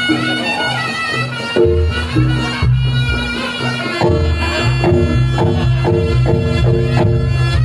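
Reog Ponorogo music: a reedy, shawm-like wind instrument holding a sustained melody over low, rhythmic drumming.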